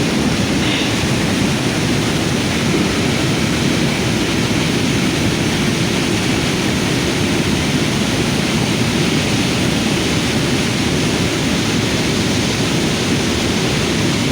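Steady, loud rushing of fast-flowing floodwater, with no change in strength.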